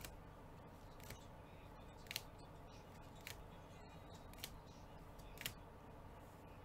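Faint, sharp plastic clicks as cards in clear rigid plastic holders are flipped from front to back of a stack in gloved hands, about one click a second, six in all, over a faint steady hum.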